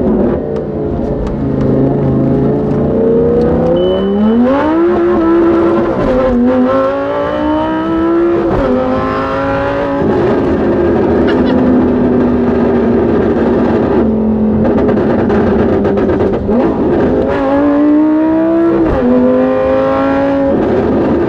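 Lamborghini Gallardo Super Trofeo Stradale's V10 heard from inside the cabin through a straight-through race exhaust with no catalytic converters, accelerating hard. The engine's pitch climbs and drops back at each upshift several times, with a steadier cruising stretch in the middle.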